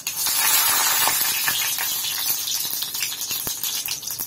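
Fresh curry leaves hitting hot oil with mustard seeds and urad dal in a kadai: a sudden loud sizzle the moment they go in, easing a little over the next seconds into a steady frying sizzle with scattered sharp pops.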